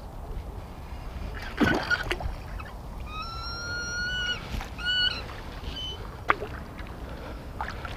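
Braided fishing line singing under strain as a hooked carp pulls against it. A high whining tone starts about three seconds in, rises slightly and holds for over a second, and a shorter whine follows about a second later. There is a rustling burst near the start and a sharp click near the end.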